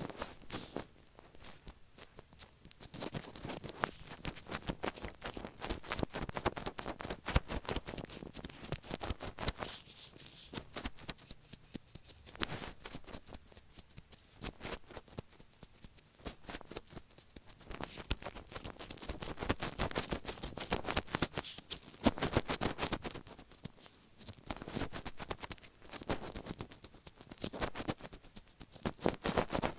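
Latex-gloved fingertips tapping and rubbing directly on an earphone microphone: rapid, irregular sticky clicks and crackles, many a second, a little denser and louder in the second half.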